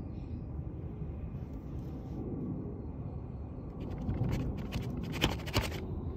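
A cat rolling over on gritty asphalt: a burst of crackling scrapes from about four to six seconds in as its body and fur rub on the road surface. Under it runs a steady low outdoor rumble.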